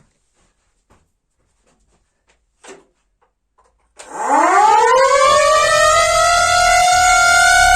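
Siren starting up about four seconds in after near silence: its pitch climbs quickly and settles into a loud, steady tone with many overtones.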